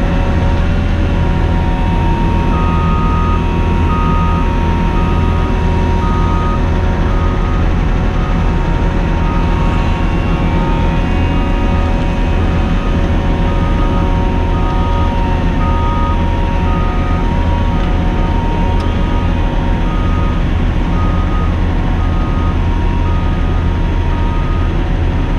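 Diesel engine of a Cat asphalt paver running steadily at work. From about two and a half seconds in, an alarm beeps on and off at an even rate, with a steady whine underneath.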